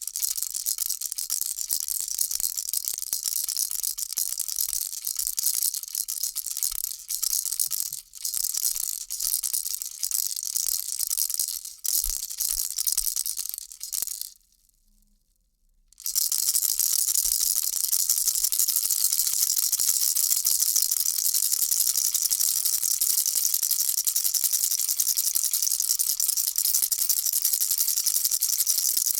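Baby rattle shaken continuously, a dense high-pitched rattle. Around the middle it stops for about two seconds, then carries on steadily.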